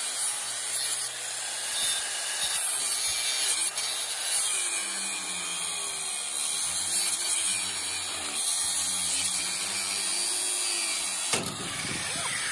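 Corded angle grinder with a cut-off disc cutting through steel angle iron: a steady, high-pitched grinding whose tone wavers as the disc bites into the metal.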